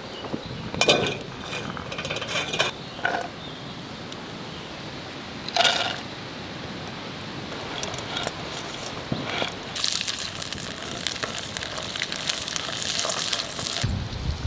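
Scattered clinks and knocks of cookware, then food frying in a pan over a wood fire, sizzling and crackling for about four seconds as it is stirred with a spatula.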